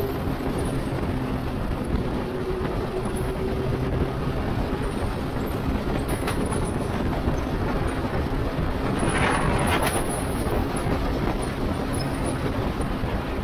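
Wind rush and road noise heard from a camera on a moving motorcycle, with the bike's engine hum audible for the first few seconds before it fades under the wind. Brief louder gusts of wind about nine to ten seconds in.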